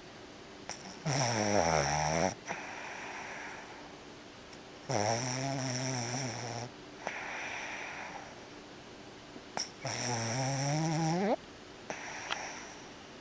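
A sleeping Boston terrier snoring: three loud snores, each one to two seconds long and about four seconds apart, with softer breathy sounds between them.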